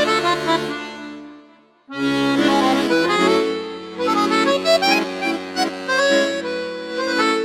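Background music: a melody over held chords. It fades out about two seconds in, then starts again.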